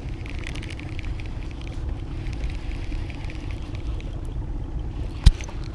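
Small boat's motor running steadily, a low rumble, with one sharp knock about five seconds in.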